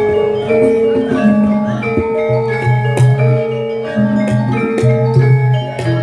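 Javanese gamelan ensemble playing a lancaran in pelog tuning: bronze metallophones ring out a melody in changing sustained notes over deep held gong tones.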